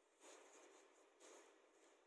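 Near silence with two faint, brief rubbing sounds about a second apart: hands rubbing salt into the skin of a raw whole chicken.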